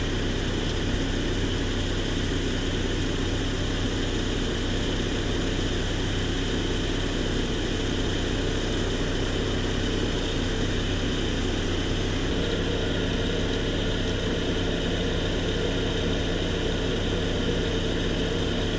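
1997 Saturn SL2's four-cylinder engine idling steadily under the open hood, with the AC system running while it is recharged with refrigerant.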